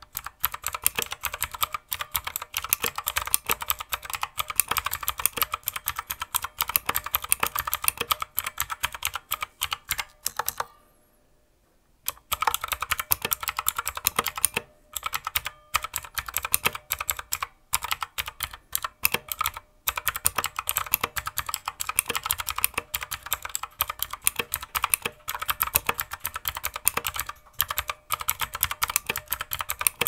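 Fast, continuous typing on the Hiwings HI200 mechanical keyboard's Outemu blue switches, a dense run of clicky keystrokes. It breaks off for about a second and a half about ten seconds in, with a few shorter pauses later.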